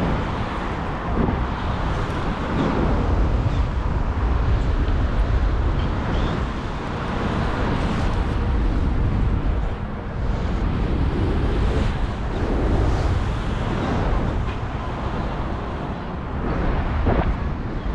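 Wind rushing over a GoPro Hero 8's microphone in paraglider flight, a steady buffeting noise that swells and eases every few seconds.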